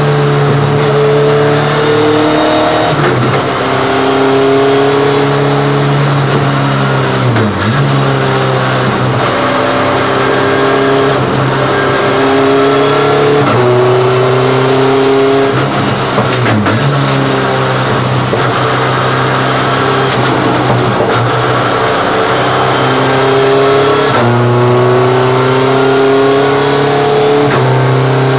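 Race car engine heard from inside the cockpit at racing speed. The revs climb and step down again and again as it shifts through the gears, with three brief sharp drops and recoveries in revs where it slows.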